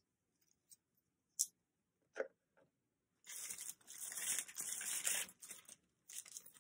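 A few light clicks and a tap as a small plastic box cutter is handled and set down on a table, then about two seconds of loud rustling and tearing of plastic packaging, with a shorter burst near the end.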